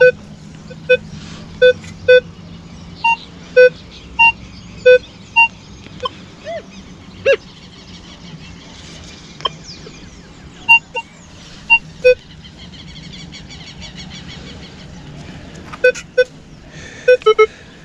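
Metal detector sounding short beeps as its coil is swept over sand, mostly a low tone with some higher-pitched ones, in quick runs with a lull a little past the middle.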